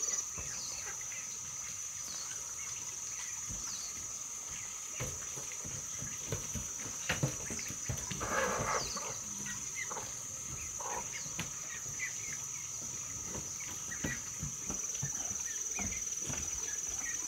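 Hens clucking from their nesting holes, loudest about eight seconds in, with scattered footsteps and scuffs on dry dirt, over a steady high-pitched insect drone.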